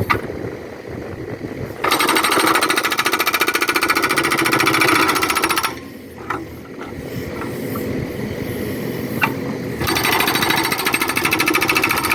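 Backhoe-mounted hydraulic rock breaker hammering rapidly in two bursts of about four seconds each, the first starting about two seconds in and the second near the end, with the backhoe's engine running between them.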